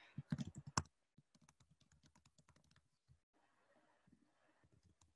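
Typing on a computer keyboard: a quick run of louder key clicks in the first second, then fainter rapid key taps for about two seconds more.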